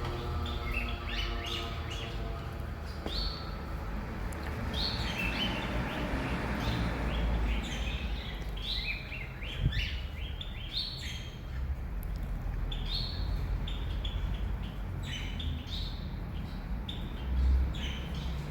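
Cage birds chirping repeatedly in short, high notes, over a steady low hum. Two low thumps stand out, about halfway through and near the end.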